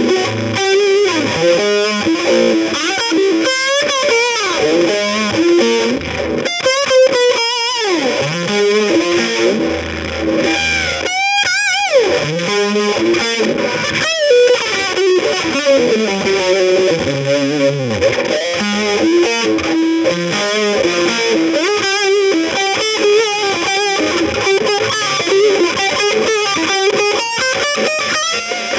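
Background music: an electric guitar with distortion and effects playing a melodic line, its notes bending and wavering in pitch.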